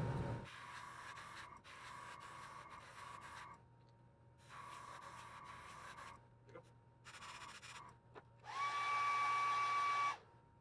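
Airbrush spraying paint in three short bursts of hiss. Near the end a hair dryer switches on for about a second and a half, louder, its motor whine rising as it starts, drying the fresh paint.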